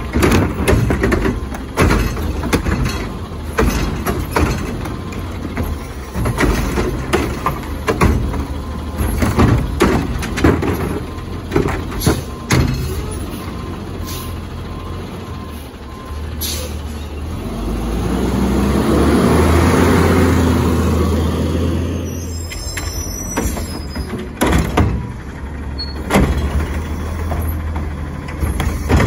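Autocar ACX garbage truck running, with its hydraulics working a Curotto-Can: a run of metal clunks and bangs, then an engine rev that swells and falls in the middle as the hydraulics work. More metal knocks follow as the arm picks up a recycling cart near the end.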